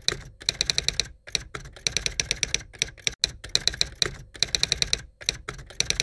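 Typing sound effect: rapid keystroke clicks in runs, broken by short pauses, as text is typed out letter by letter on screen.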